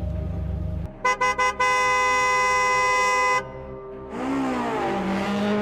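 Car horn: four quick toots about a second in, then one long steady blast lasting nearly two seconds, over a low rumble.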